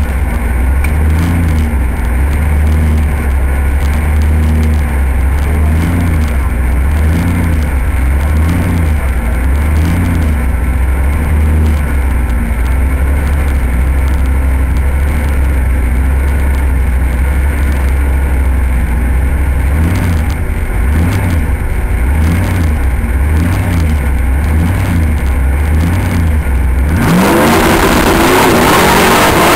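1964 Chevelle drag car's engine heard from inside the cabin, idling loudly at the start line with a pulsing beat a little over once a second. Near the end it goes to full throttle for the launch, suddenly louder with the engine note climbing.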